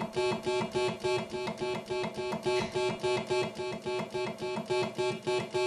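Oberheim OB-8 analog polyphonic synthesizer played as a fast, even run of the same bright, plucky note, about five a second. Some notes sound a little hotter than others.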